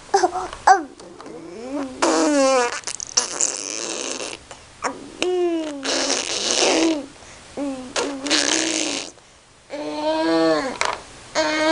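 A baby vocalizing: a string of high squeals and coos, many gliding up or down in pitch, several of them rough and buzzy.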